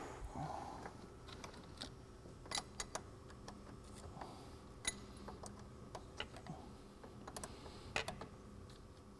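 Small metallic clicks and taps, irregularly spaced, from a wrench working the nut on a car battery's negative terminal clamp. There is a quick run of clicks about two and a half seconds in and a louder pair near the end.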